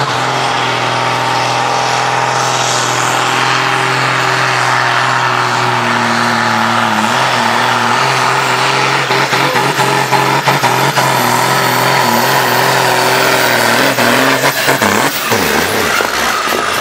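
Diesel pulling tractor running flat out while dragging the weight sled, with a high whine climbing steadily in pitch through the pull. The engine note wavers in the second half.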